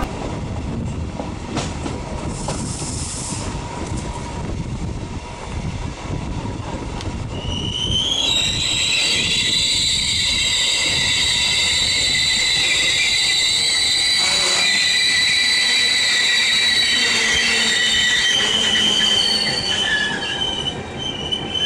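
Regional train running along the track, heard at a carriage window, with a low rolling rumble; about eight seconds in, its steel wheels start squealing loudly in several shrill high tones that carry on to the end.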